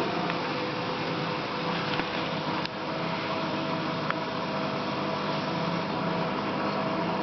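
Electrolux washing machine running with a steady hum and several steady whining tones, with a few faint clicks about two, two and a half and four seconds in. It is the strange noise that the owner takes for a fault in the two-week-old machine.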